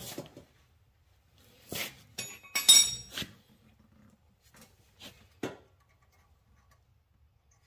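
Metal tools and steering parts clinking and tapping together as a new tie rod end is fitted at the steering knuckle. There are a few sharp clinks, the loudest with a short metallic ring about two and a half seconds in, and lighter taps around five seconds.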